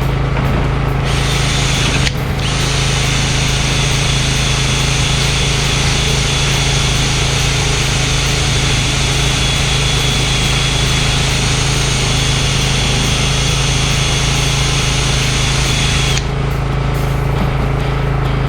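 Power sander running steadily on the epoxy-coated wood, starting about a second in, cutting out briefly near two seconds and stopping shortly before the end. A steady low hum runs underneath.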